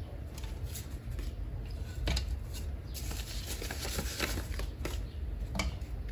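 Paper dollar bills rustling in short, irregular crinkles as they are pulled from a plastic accordion cash sorter and laid out by hand.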